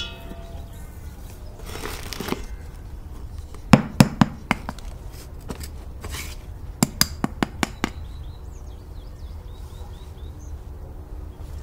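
A freshly baked sourdough loaf being handled over a cast-iron Dutch oven: a soft rustle of oven mitts, then a few sharp knocks around four seconds in and a quick run of about six lighter taps a few seconds later.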